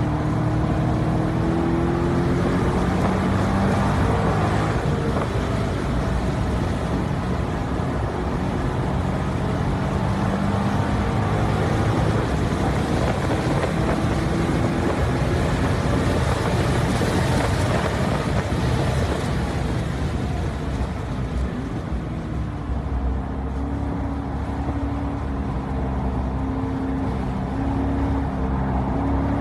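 Corvette Grand Sport's 6.2-litre LS3 V8 driven hard, the engine note climbing and falling as the car accelerates and slows, over road and wind noise. The note dips and quietens briefly a little after two-thirds through, then climbs again.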